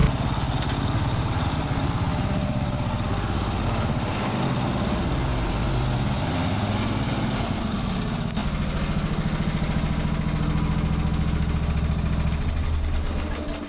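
MTD Lawnflite 548 lawn tractor's engine running while the tractor is driven on a test ride. The engine speed wavers in the middle, then holds steady, and the sound falls away right at the end.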